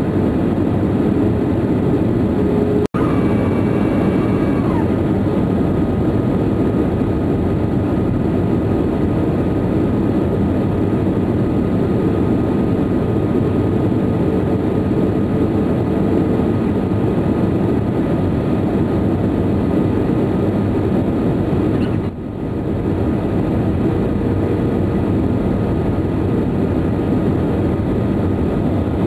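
Steady roar of a Boeing 737-300's engines and rushing airflow heard inside the cabin on final approach with the flaps down. The sound cuts out for an instant about three seconds in, then a short high whine slides down in pitch.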